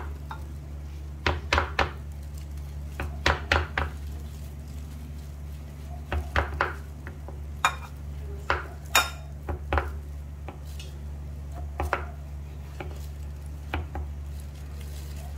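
Kitchen knife slicing a thin fried-egg omelette into strips, the blade knocking on a wooden cutting board in short clusters of taps every second or two. A steady low hum runs underneath.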